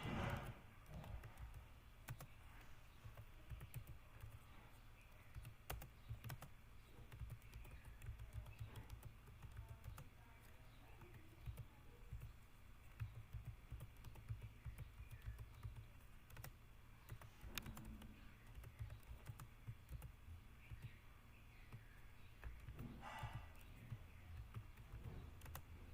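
Computer keyboard being typed on, faint irregular key clicks during a timed typing test at a pace of about 27 words a minute.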